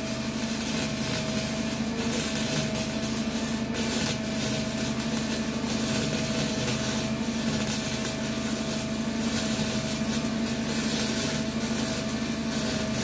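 Small 120-volt arc welder running a continuous bead on sheet-metal patches in a bus floor: a steady crackling sizzle with a constant hum underneath.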